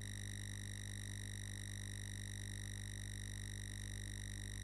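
Steady electrical hum with a faint high whine over low hiss, the recording's background noise, unchanging throughout.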